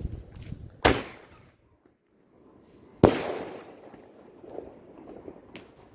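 Small aerial firework shell (sky shot) being fired: a sharp launch report about a second in, then a louder burst about two seconds later that echoes away.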